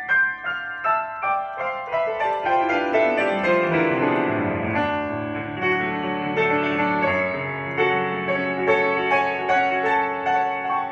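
Upright piano played solo: a passage that runs down into the bass over the first few seconds, then held low notes under repeated higher chords.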